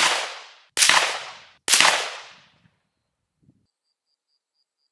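Three rifle shots about a second apart from a Black Creek MRX Bison rifle chambered in 5.56 NATO, each crack followed by a short echo that fades away: a three-shot group fired at a target 100 yards off. Faint cricket chirps come in near the end.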